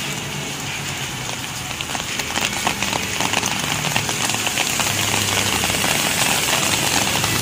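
Rain falling, a steady hiss dotted with many small drop hits that grow thicker after about two seconds, over a faint low engine hum.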